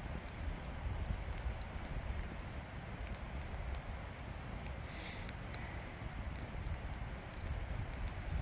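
Wood campfire crackling, with many sharp irregular pops and snaps over a steady low rumble.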